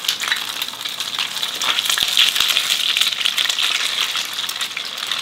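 A piece of unbattered fish deep-frying in about 200 °C oil in a small iron frying pan: a steady, dense crackling sizzle.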